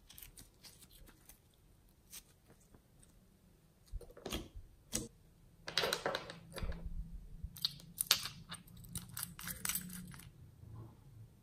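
Hands working sticky green glitter slime: soft sticky clicks and pops as it is stretched, with a louder stretch of squelching about six seconds in as it goes into the tray. Near the end come light taps and clicks as a small decorative bottle is picked up between the fingers.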